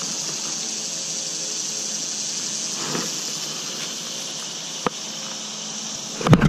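Steady rushing hiss of flowing river water, with a soft knock about three seconds in and a single sharp click about five seconds in.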